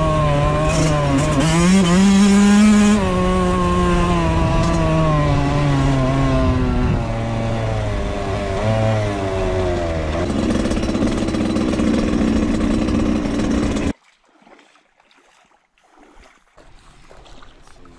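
Suzuki RM85's single-cylinder two-stroke engine heard from the rider's helmet camera while it is ridden, revving up and easing off with the pitch rising, then falling, then shifting again. It cuts off abruptly about fourteen seconds in, leaving only faint outdoor sound.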